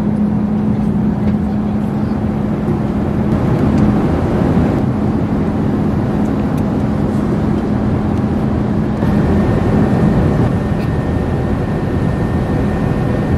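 Steady cabin noise inside an Airbus A380-842 airliner, an even rushing hiss with a low hum that drops away about four seconds in.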